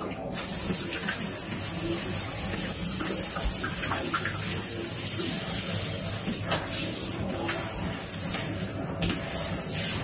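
Water running from a tap or hand shower into a bathtub. It is turned on just after the start and then runs steadily.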